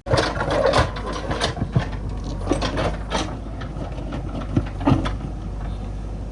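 Heavy diesel machinery running steadily, with irregular clanks, knocks and rattles of metal and loose stone, typical of a backhoe loader loading murum.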